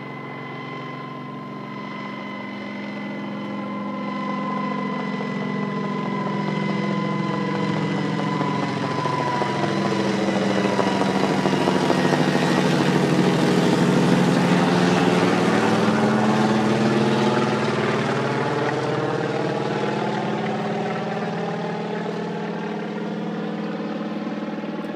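Crop-spraying helicopter flying low overhead. Its rotor and engine noise grows louder to a peak about halfway through, then fades as it moves away, with a steady whine that drops slightly in pitch as it passes.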